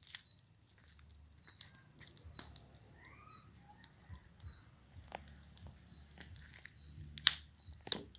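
Small wood bonfire crackling, with scattered sharp pops, the loudest near the end, over a steady high insect trill.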